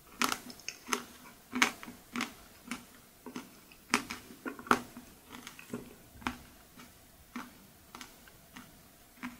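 Close-miked mouth sounds of someone eating a mouthful of ice cream: wet smacking and clicking at uneven intervals, about two a second, with a few louder smacks.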